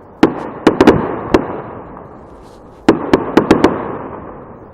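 Fireworks exploding in two quick volleys of about five sharp bangs each, the first just after the start and the second a little before three seconds in, each volley dying away in a rumbling echo.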